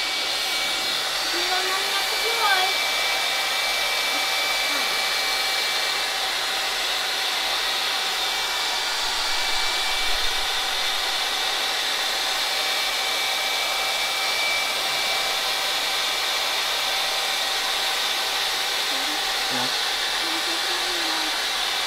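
Handheld hair dryer running steadily on one setting: a constant rush of air with a thin, steady motor whine, held on a leather knife sheath to warm it before conditioning.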